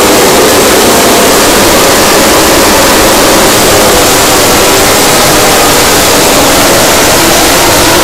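A full grid of MotoGP racing motorcycles' 1000 cc four-stroke engines revving hard together at the race start. The sound is a loud, dense wall of engine noise with faint rising and falling pitches.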